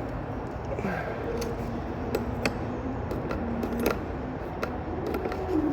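Metal hand tools clinking and tapping against metal in a few irregular sharp clicks while working at a stubborn bolt, over a low steady background hum.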